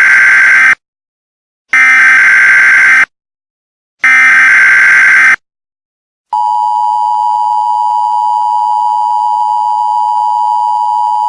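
Loud Emergency Alert System header: three bursts of SAME digital data tones about two seconds apart, the first already under way. About a second after the third burst, the steady two-tone EAS attention signal begins and holds.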